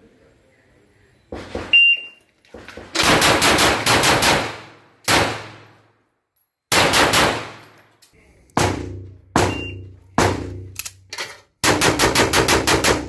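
Shot timer's short electronic start beep, then a pistol firing rapidly at targets: quick strings of several shots with single shots between, each a sharp crack with a short echo.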